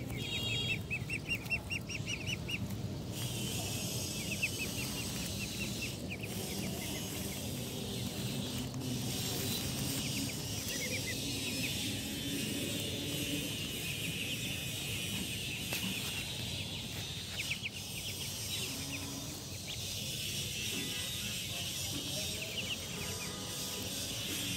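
A flock of young Muscovy ducklings peeping in quick runs of short calls, over a steady high hiss that comes in about three seconds in.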